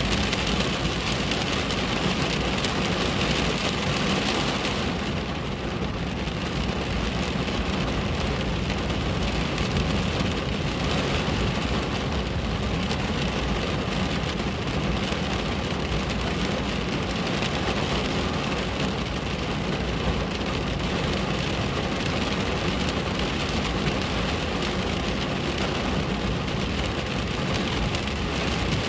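Steady rain falling on a window pane: an even, unbroken hiss of drops.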